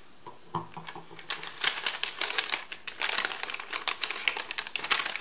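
Plastic sleeve of a US MRE flameless ration heater crinkling and crackling as it is handled and opened, in quick irregular crackles that start about half a second in.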